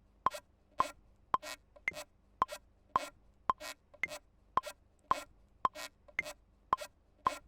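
Maschine MK3 metronome clicking steadily about twice a second, with a higher-pitched accent click on every fourth beat. A short, hissy percussion hit falls between the clicks, making an even programmed drum pattern.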